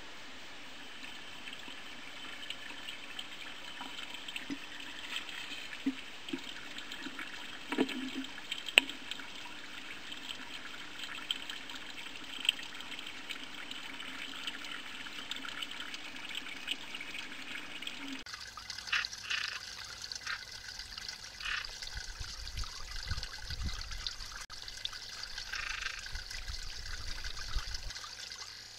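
Water trickling in a garden pond. The sound changes abruptly about 18 seconds in, and short bursts of sound come over the water after that.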